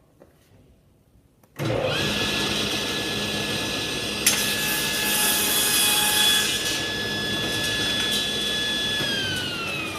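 Table saw switched on about a second and a half in, its motor and blade running up to a steady high whine. The blade cuts through a board crosswise for a few seconds in the middle. Near the end the saw is switched off and the whine falls as the blade spins down.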